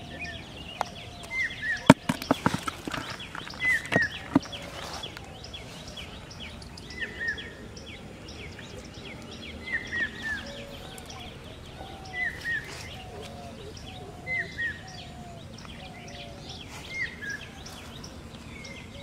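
Birds calling around a pond: a short two-note call repeats every two to three seconds, with softer, lower calls in between. A quick run of sharp clicks and knocks about two to four seconds in is the loudest sound.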